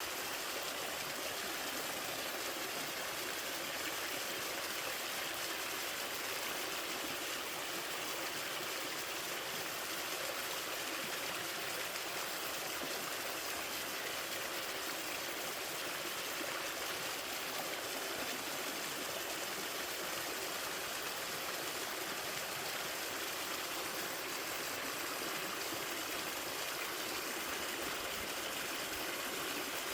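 Water pouring over a small two-tier waterfall in a mountain stream: a steady, even rush with no change.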